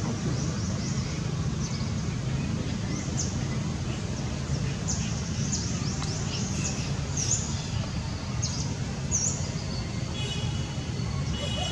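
Small birds chirping repeatedly in short, high, falling notes over a steady low rumble, with a longer call of several tones near the end.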